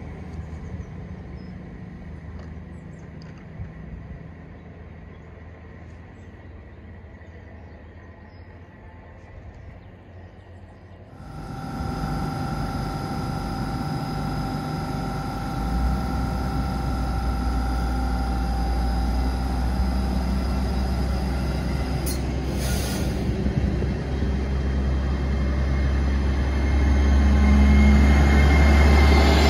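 A GWR Class 802 bi-mode train is first heard faintly in the distance. Then it stands close by with a steady electrical whine. Its underfloor diesel engines open up with a deep rumble that grows louder as it starts to pull away, with a short hiss partway through.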